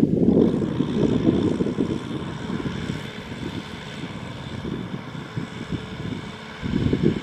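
Kubota M6040 tractor's four-cylinder diesel engine running under load as it tows a trailer stacked with rice sacks, a rough low rumble that is loudest at the start and swells again near the end.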